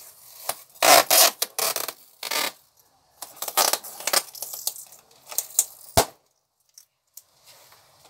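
Adhesive tape pulled off a roll and handled against a cardboard tube: several short rasping strips over the first six seconds, then one sharp click.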